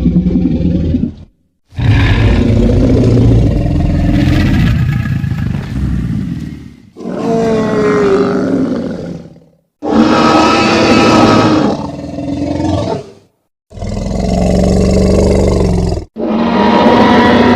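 Custom Titanosaurus monster roar sound effects, layered from tyrannosaurus rex roars and deep beast growls and howls. They come as a string of about six long roars, each lasting a few seconds, with brief silences between them.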